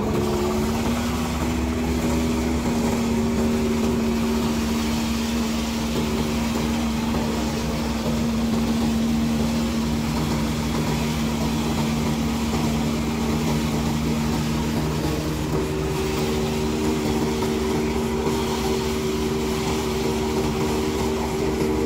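Engine-driven corn thresher running steadily, a constant engine hum with the clatter and rush of the threshing machinery. The pitch climbs into place right at the start and then holds steady.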